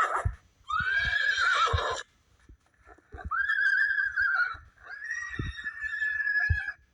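Horse whinnying sound effect: three neighs, each about a second and a half long, with a few short low thumps between them.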